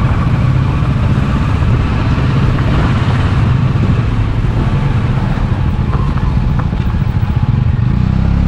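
Kawasaki Versys 650's parallel-twin engine running steadily under way, heard from the rider's seat.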